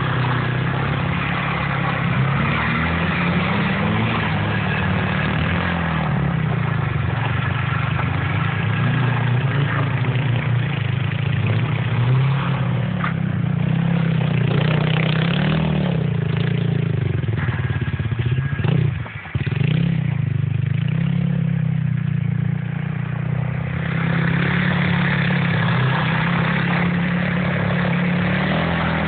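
Mercedes saloon's engine revving up and down again and again as the car is drifted on snow, its pitch rising and falling continually. The sound drops away sharply for a moment about two-thirds of the way through, then picks up again.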